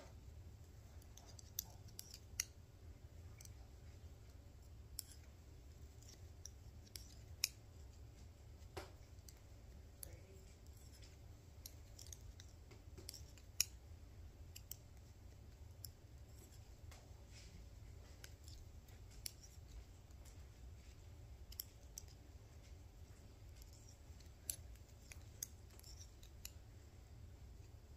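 Knitting needles clicking against each other as stitches are worked: faint, irregular clicks, one or two a second, over a low steady hum.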